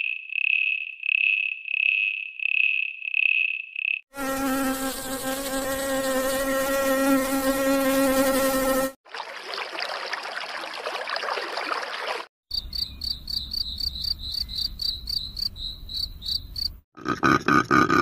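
A run of separate insect sounds: a high pulsing chirp about twice a second, then a buzzing wing drone for about five seconds, a few seconds of hiss, then rapid high chirping about four times a second.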